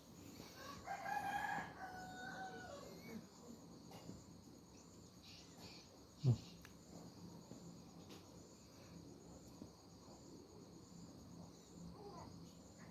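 A rooster crowing once, a held call of about two seconds that drops in pitch at the end, starting about half a second in. A single low thump about six seconds in, over a faint steady high pulsing chirr, likely insects.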